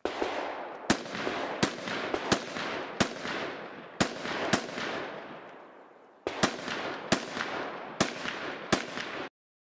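Semi-automatic AR-15-pattern rifle (Uronen UR-15 with a three-chamber compensator) firing about fourteen shots from prone, in singles and quick pairs with a short pause midway. Each report is followed by a long echoing tail. The sound cuts off suddenly near the end.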